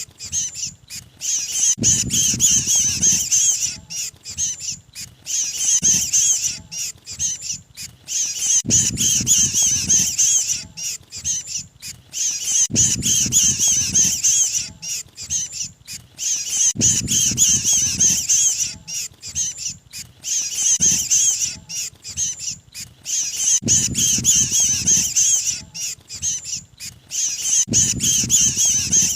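Recorded distress calls of a trapped ('kejepit') mantenan bird, played as a bird lure: bursts of rapid, high-pitched squeaky chattering, each about two to three seconds long, repeating every few seconds with a low rumble under each burst.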